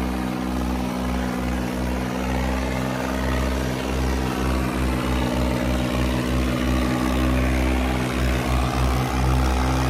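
Two diesel tractors, a John Deere 5210 and a Farmtrac, running hard under full load as they pull against each other in a tug-of-war. The engines keep up a steady, loud drone.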